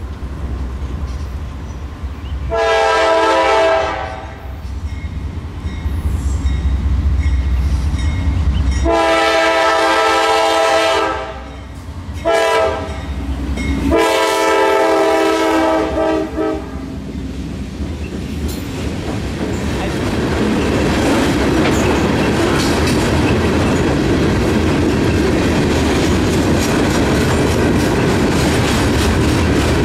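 Six-axle diesel freight locomotive approaching with its engine running low, sounding its horn in the grade-crossing pattern: two long blasts, one short, one long. From about seventeen seconds in, the train passes, its wheels clattering steadily over the rail joints.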